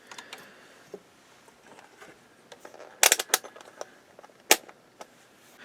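Bench handling noise: a few sharp small clicks and taps of tools and multimeter probes being moved, a quick cluster about three seconds in and one more a second and a half later.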